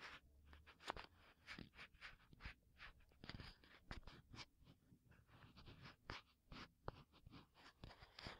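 Ear pick scraping and scratching just inside the ear canal of a binaural microphone, heard up close as soft, quick, irregular strokes, several a second.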